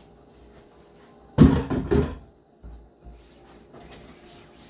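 A quick cluster of clattering knocks from kitchen cookware, lasting about half a second and starting about a second and a half in, while vegetables are being added to a pot of boiling soup.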